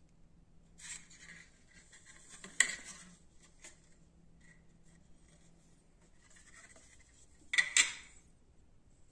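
A thin plastic 3D print being handled on a 3D printer's bed: rubbing and scraping, a sharp click a few seconds in, and two sharp knocks close together near the end as it is set back down on the bed.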